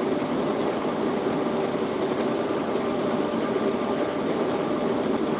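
Steady engine and road noise inside a truck's cab cruising at highway speed.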